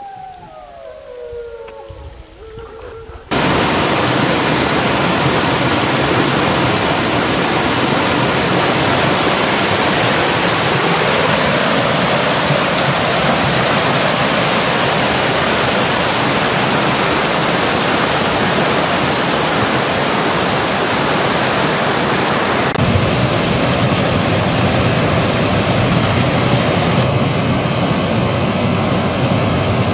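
A wolf pack howling, several long rising and falling howls overlapping, cut off suddenly about three seconds in by the loud, steady rush of river rapids pouring over rocks. The water's sound shifts once, a little past two-thirds of the way through.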